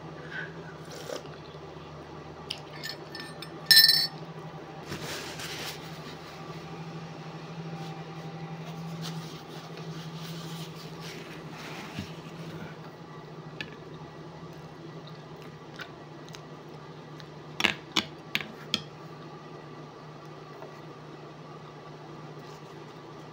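A ceramic coffee mug with a metal spoon in it clinks once, loud and ringing, about four seconds in, over a steady low hum. A quick run of about four sharp knocks comes later.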